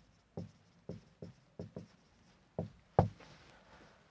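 Marker pen writing on a board: a string of short taps and strokes as the letters go down, the loudest about three seconds in, followed by a faint scratchy rub.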